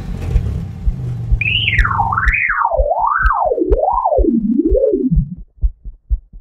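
Cartoon electronic sound effects: after a low rumble, a wavering synthesized tone swoops up and down while falling steadily in pitch for about four seconds, like a siren winding down. Under it runs a low heartbeat-like thump, about two a second at first and quicker near the end.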